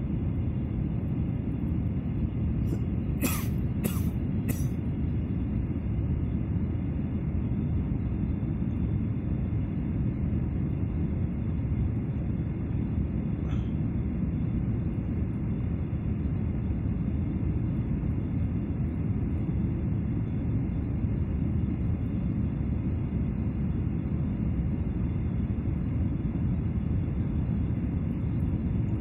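Steady low rumble of a jet airliner's cabin during the descent on approach: engine and airflow noise heard from a window seat. Three short sharp knocks or clicks come about three to four and a half seconds in.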